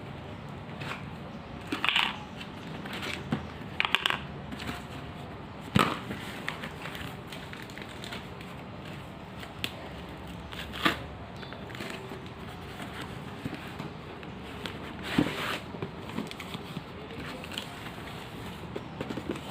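Hot Wheels diecast car packaging being handled and opened: intermittent crinkling and crackling, with a handful of sharp crunches over a steady low background hum.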